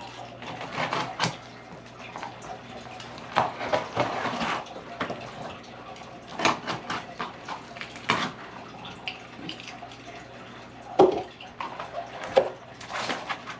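Cardboard shipping box being opened by hand: packing tape slit along the seam with a small cutter, then the flaps pulled open, in a scatter of short scrapes, rips and cardboard rustles.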